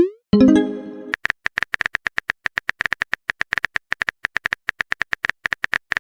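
Simulated phone-keyboard typing clicks, about eight a second, the typing sound of a texting story. Right at the start a quick rising swoosh is followed by a short chime lasting under a second: a message sound.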